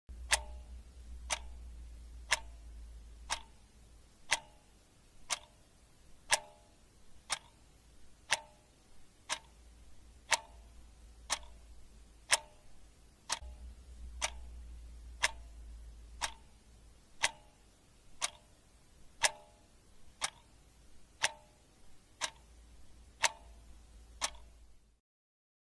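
Clock ticking steadily at one tick a second, every other tick a little louder, over a faint low hum. The ticking stops suddenly near the end.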